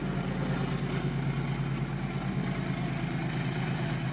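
WDG-4G diesel-electric freight locomotive's V12 diesel engine running with a steady low drone as it passes at the head of a container train.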